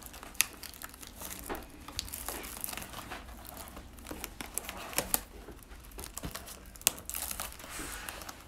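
Clear plastic shrink-wrap being torn and crinkled off a cardboard trading-card hobby box: a steady run of crackles with a few sharper snaps, the loudest about half a second in and near seven seconds.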